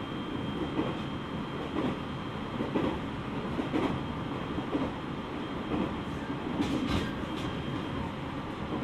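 Running sound heard inside the lead car of a JR East 701 series electric train (KuMoHa 701-30): a steady rumble of wheels on rail and the motor car's running gear, swelling about once a second, with two sharp clicks about seven seconds in.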